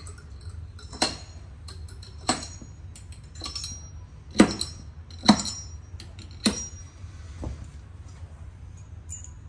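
Hammer striking steel nails set in carpet: five sharp metallic clinks with a brief ring, a second or so apart, the loudest two about halfway through.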